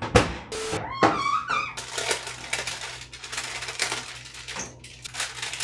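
Oven door pulled open with a clunk. A metal baking pan then goes onto the wire oven rack, with many light metallic clinks and rattles and parchment paper crinkling as it is tucked around the plastic.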